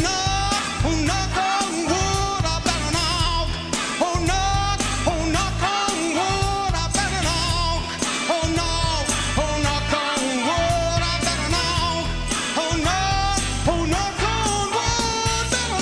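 A male vocalist singing a soul/rock-and-roll song into a microphone, with wavering held notes over instrumental accompaniment that keeps a steady beat.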